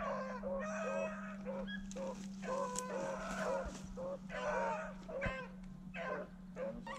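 Rabbit-hunting dogs giving tongue on a rabbit's trail: a rapid run of high yelps, about two to three a second, with a steady low hum beneath.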